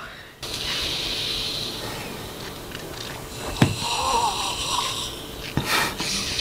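Film audio of a man straining, with wheezing, snoring-like breaths over a steady rushing hiss, as the character starts to swell up. A sharp click sounds a little past halfway.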